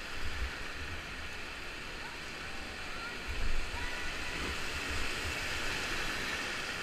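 Whitewater rapids rushing and splashing around an inflatable kayak as it is paddled through them, with a louder splash about three and a half seconds in.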